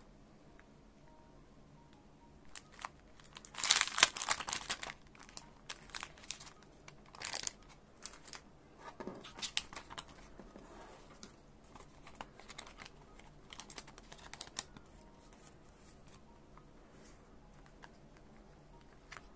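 Crinkling and rustling of thin polypropylene: a pack of clear card sleeves being handled and a sleeve worked open as a photocard is slid into it. The loudest crinkling comes about four seconds in, followed by scattered softer rustles for about ten seconds.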